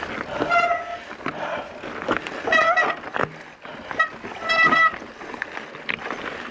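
A man wheezing hard after being winded in a mountain-bike crash: high, whistling breaths about every two seconds, with rustling and clicks in between.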